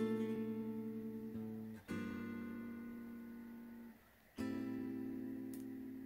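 Background music: an acoustic guitar strumming chords, a new chord struck about every two seconds and each left to ring and fade.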